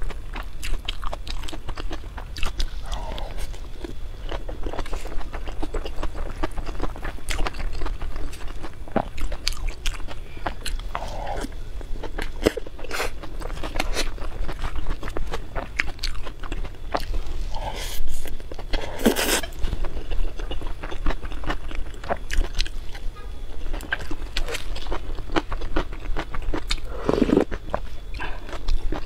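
Close-miked chewing and biting of a person eating, with crunching, many small wet mouth clicks and the odd click of chopsticks against a metal bowl.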